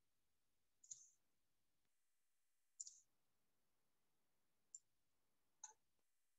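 Four faint computer mouse clicks, spaced one to two seconds apart, over near silence.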